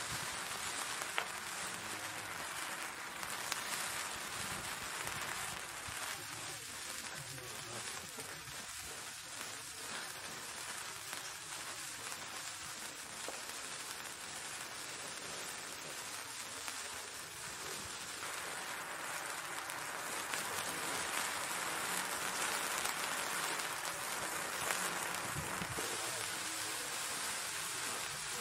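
A Kamui Gold/Silver Japanese sparkler burning, with a steady fizzing hiss of spitting sparks and a few sharper crackles.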